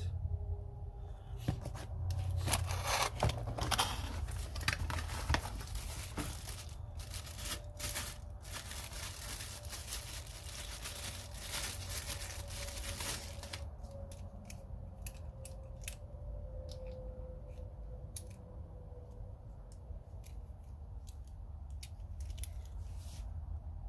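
Packaging being torn open and crinkled, with a dense run of rustling and tearing for about the first thirteen seconds. After that come quieter, scattered small clicks of parts being handled.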